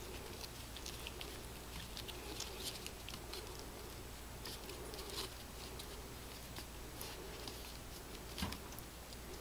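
Puppies scuffling and play-biting: light scrabbling of paws and claws with scattered small clicks, over a faint steady hum, and a single louder thump about eight seconds in.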